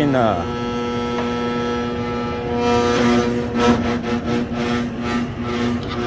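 Blower motor of a rooftop package AC unit running with a steady electric hum as it drives the belt-driven blower, a motor the technician judges to be weak. About two and a half seconds in, the hum grows louder and an uneven pulsing noise joins it.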